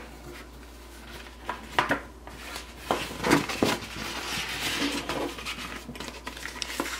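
A cardboard shipping box and stiff paper envelopes being handled: scattered light knocks and scrapes, then a few seconds of paper rustling and sliding.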